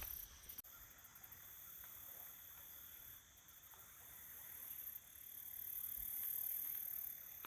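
Faint riverside ambience: insects holding steady high-pitched tones over a soft hiss that swells and fades, with the river flowing gently.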